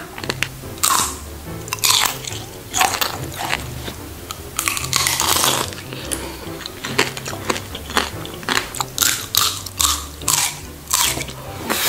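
Crunching bites into watermelon tanghulu: the hard candy shell cracks and shatters between the teeth in many short, sharp crunches, with chewing between them. Background music plays softly underneath.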